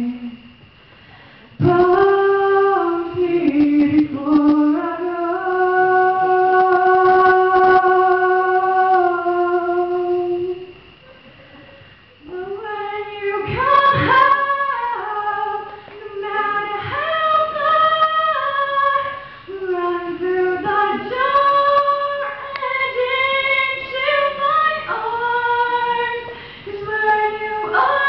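A young woman singing solo into a handheld microphone, with long held notes. The singing breaks off briefly about a second in and again around eleven seconds in.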